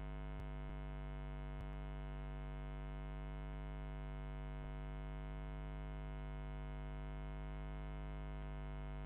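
Steady mains hum, a low buzz with many evenly spaced overtones, with a few faint keyboard keystrokes in the first two seconds.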